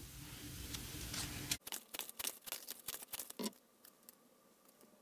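Tarot cards being drawn from the deck and laid on the table: a faint, quick run of small clicks and taps, starting about a second and a half in and stopping abruptly.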